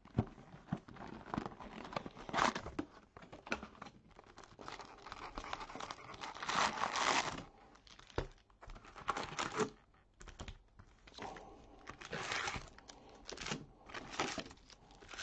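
Plastic wrapping on trading-card packs being torn open and crinkled in a series of irregular bursts, the longest a little after halfway, with a single low knock shortly after it.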